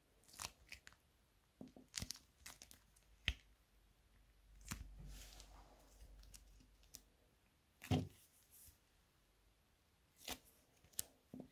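Faint, scattered crinkles and clicks of a plastic tube of mouse glue being squeezed by hand, the loudest click about eight seconds in, with a soft rustle around five seconds in.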